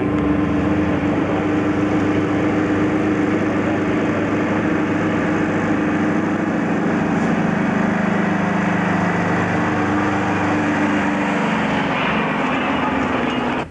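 Diesel engine of a loaded logging truck running steadily as it approaches and passes close by, with road and tyre noise. The engine note dips slightly in pitch near the end as the truck goes past.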